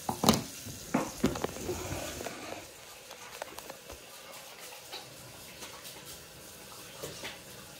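Several knocks and taps from handling on a kitchen counter in the first two seconds, then a faint steady hiss.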